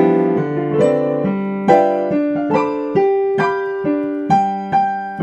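Piano playing a simple melody, single notes struck about twice a second, each fading before the next.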